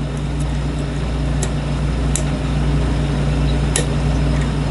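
Steady low hum, with a few faint sharp metal ticks from a lock pick working the pins inside a lock cylinder.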